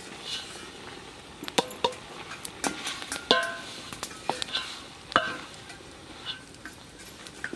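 Ladle stirring duck in a large metal cooking pot over a fire, knocking against the pot's side in irregular strikes, several of which make the pot ring briefly.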